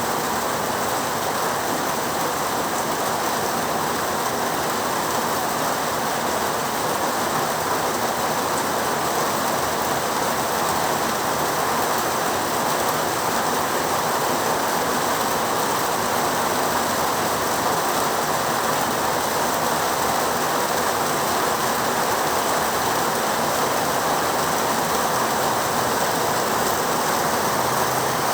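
Heavy rain falling steadily, a dense even hiss with no single drops or thunder standing out.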